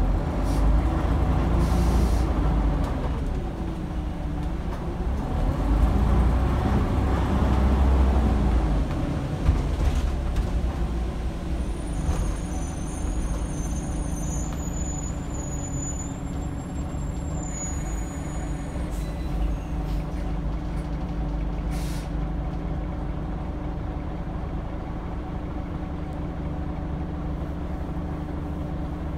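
Scania DC9 diesel engine of a Scania N94UD double-decker bus heard from the upper deck. For the first nine seconds or so its pitch rises and falls as the bus pulls away and changes gear, then it settles to a steadier, quieter note. Short hisses of air from the air brakes come in a few times.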